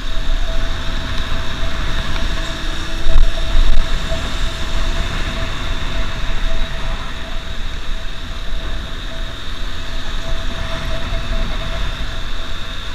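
Motorcycle riding along a road: wind buffeting the camera's microphone over the steady drone of the engine. It gets louder for a moment about three seconds in.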